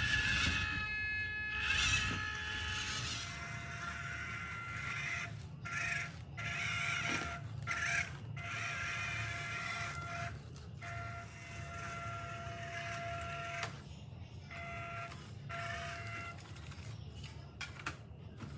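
Scale RC crawler's small electric motor and gearbox whining at a fixed pitch, cutting out and starting again several times as the throttle is let off and applied.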